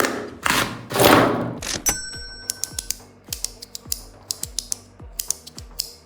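Background music with a steady low beat, with rapid sharp clicks over it from a small EDC fidget toy being clicked. Two whooshing swishes come in the first second and a half.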